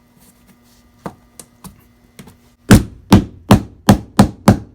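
Rubber mallet knocking a laminate floor plank down into its snap-together joint: a few faint clicks, then from about two and a half seconds in a steady run of sharp knocks, two or three a second.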